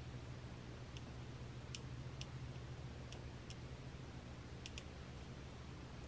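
Scattered light clicks, about seven, of beads, chain and tools being handled in jewelry making, over a steady low hum.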